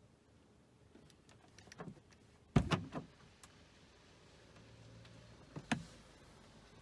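Quiet car interior broken by a few sharp knocks and clicks: two loud ones close together about two and a half seconds in and another near six seconds. A faint low hum comes in about four and a half seconds in.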